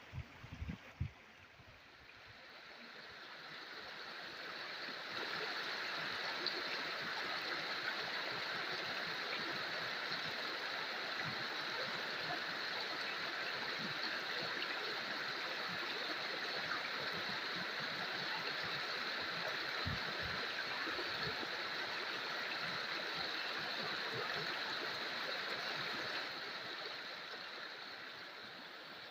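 Flowing stream water, a steady rushing that builds over the first few seconds and then holds even. A few short low thumps come right at the start.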